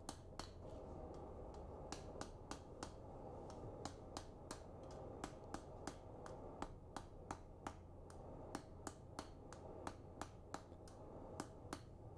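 Hand hammer striking hot steel on an anvil in a fast, even rhythm of about three blows a second, faint and sharp, as the tip and distal taper of a forge-welded railroad-spike-and-farrier-rasp blade are drawn out. A low steady hum runs underneath.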